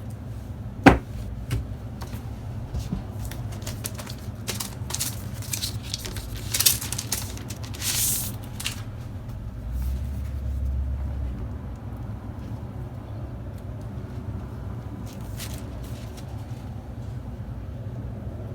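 Unboxing handling noises: a sharp knock about a second in, then several seconds of rustling and scraping of packaging being handled, with a few more rustles later, over a steady low hum.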